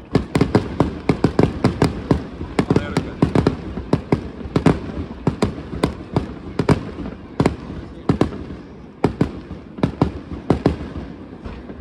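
Aerial firework shells bursting in quick, irregular succession, a rapid string of bangs for the first few seconds, then more spaced single bangs.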